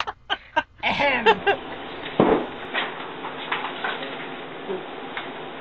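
A short throat-clear ("ahem") about a second in, followed by a steady hiss of room noise with a few faint knocks and rustles.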